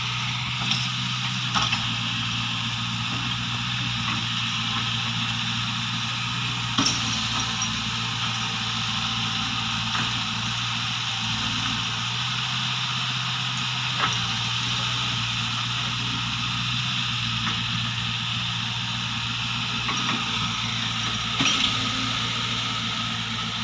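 Tracked excavator's diesel engine running steadily at an even pitch, with a few brief knocks scattered through.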